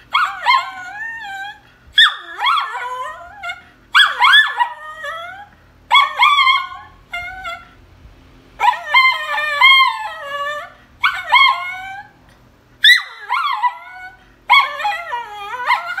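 Small dog howling and whining in a run of high, wavering calls. A burst comes about every two seconds, each call sliding down in pitch.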